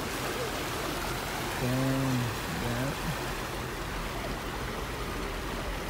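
A car driving slowly through deep street floodwater: a steady rush and slosh of water churned up alongside the car, over a low steady hum from the car. A brief murmur from someone in the car comes about two seconds in.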